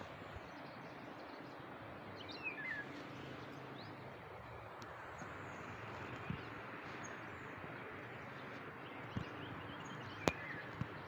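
Outdoor ambience: a steady hiss with a few short bird chirps about two and a half seconds in, and a handful of sharp clicks or knocks toward the end.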